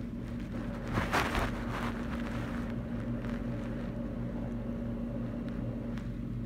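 Steady low hum and background noise from an open call microphone, with a brief burst of noise about a second in.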